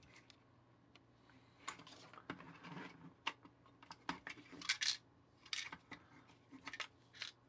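Small hard-plastic clicks and knocks from the parts of a partly dismantled plastic toy cap pistol being handled and pressed at, scattered through, with a cluster of louder clicks a little after halfway.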